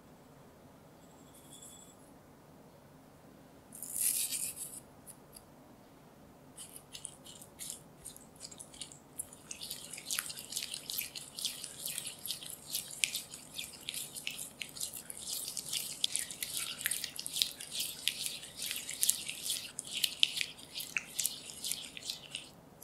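Silicone spatula stirring marmalade, vegetable oil and sugar in a glass bowl: quick, wet scraping and clicking against the glass, dense from about ten seconds in. About four seconds in, a short hiss of granulated sugar being poured in.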